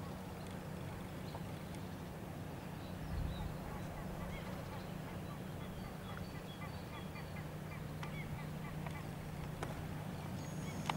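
A bird calling in a quick series of short, repeated notes for several seconds from about four seconds in, over a steady low hum, with a brief low rumble about three seconds in.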